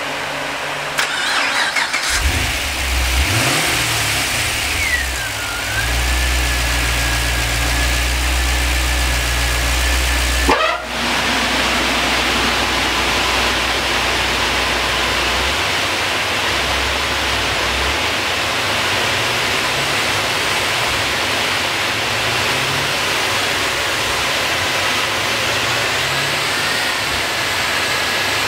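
Twin-turbocharged 6.0-litre V8 of a Holden VE Commodore SS V running at full throttle on a chassis dyno, with a steady turbo whistle over the engine note. About ten seconds in the pull ends abruptly. After that a steady loud rush of air carries on over the engine easing down.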